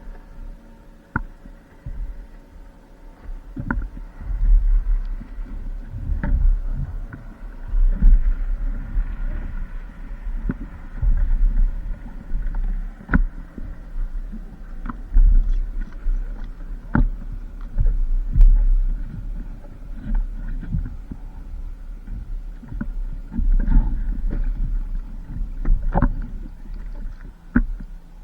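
Paddling on a stand-up paddleboard: water sloshing against the board, with a heavy low rumble and sharp knocks every second or two at irregular intervals.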